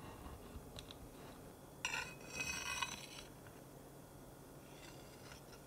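A metal kitchen utensil scrapes against a hard surface with a bright metallic ring for about a second, about two seconds in. A few soft taps come before and after.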